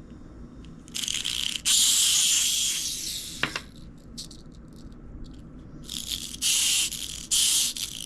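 Clockwork wind-up motor from a toy boat running down, its spring driving the gears in a high buzzing whir. It runs in two stretches of about two seconds each, with a quieter gap between.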